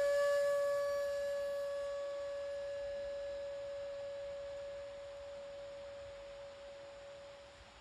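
Shakuhachi (bamboo end-blown flute) holding one long, pure note that slowly fades away, dying out near the end.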